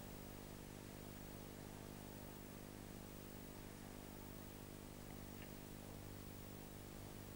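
Faint steady electrical hum with a layer of hiss: the background noise of an old film soundtrack, with no other sound.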